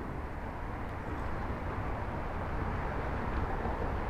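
Steady low rumble with a faint hiss and no distinct events.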